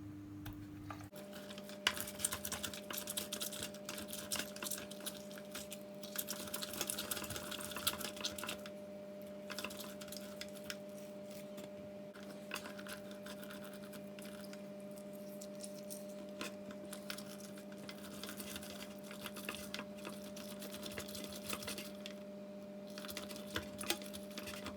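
Electric citrus juicer's motor running with a steady hum that starts about a second in, with irregular crackling and squelching as orange halves are pressed onto the spinning reamer.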